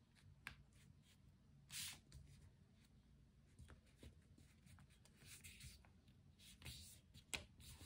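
Faint rustling and brushing of a sheet of paper being folded and slid across a wooden tabletop, with a few light ticks; one longer swish about two seconds in and a sharper tick near the end.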